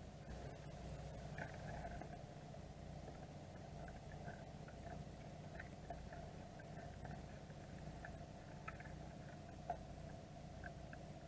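Underwater recording of Dungeness crabs clambering over a baited container: faint scattered clicks and scratches of shell and claw against hard surfaces over a steady low hum.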